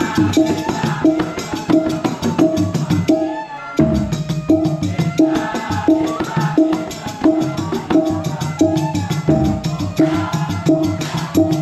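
Balinese kecak rehearsal music: the tambur drum and the seated male chorus keep a fast, interlocking rhythm, with a short pitched figure repeating two or three times a second. The rhythm breaks off briefly about three and a half seconds in, then picks up again.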